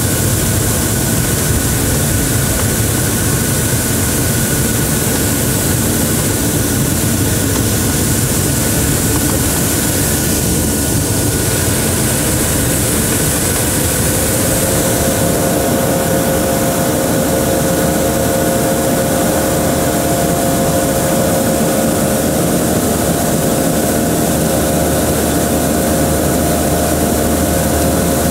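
Steady jet engine and airflow noise inside the cabin of a Boeing 737-800 in flight, an even rushing drone with a low hum. About halfway through, a pair of steady humming tones joins in.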